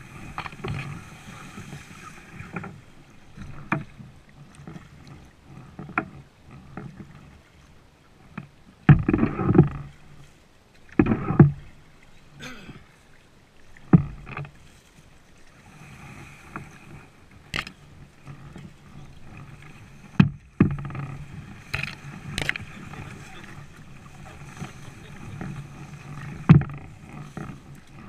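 Reed and grass stems brushing and scraping along the hull of a plastic kayak as it pushes through a reed-choked canal, with two longer, louder rustling bursts partway through. A handful of sharp knocks come at irregular intervals.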